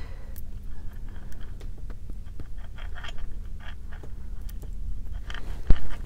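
Faint, scattered small clicks and ticks of fingers handling tiny metal jump rings and bead links, over a steady faint hum. One loud thump near the end.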